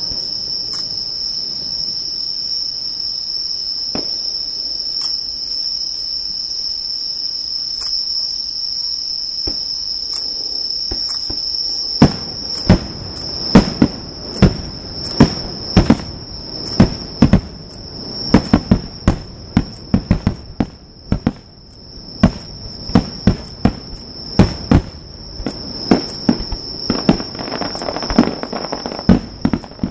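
Fireworks going off: a few scattered pops, then from about twelve seconds in a rapid, irregular string of loud bangs. Insects keep up a steady high-pitched trill underneath.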